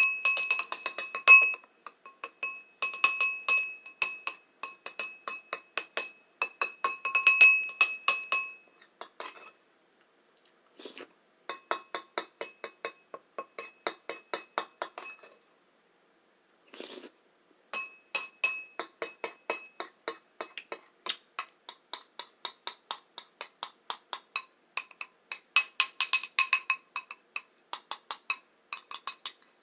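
A bowl being tapped rapidly, several taps a second, each tap ringing with a clear bell-like tone. The tapping pauses twice, about a third and about halfway through, with a short softer noise in each gap.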